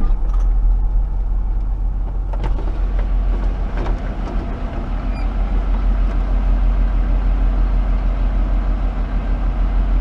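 A vehicle engine running steadily, heard from close by, with a few sharp knocks in the first four seconds.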